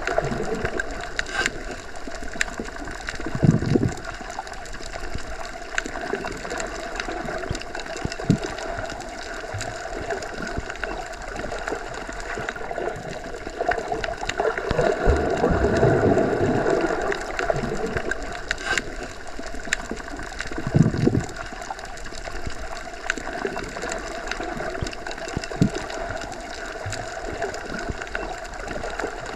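Underwater ambience: a steady muffled water rush with gurgling and scattered small clicks and pops. Low surges swell up a few times, the largest about halfway through.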